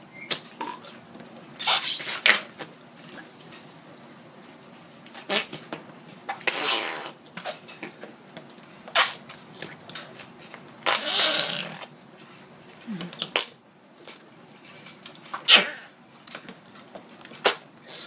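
Slime putty squeezed in its pot, letting out short squelching fart noises about eight times, a few seconds apart. Two of them, about a third of the way in and near the middle, run longer.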